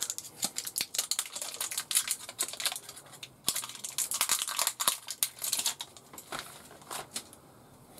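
Plastic packaging crinkling and crackling as it is handled, in dense irregular bursts that thin out to a few scattered clicks after about five and a half seconds.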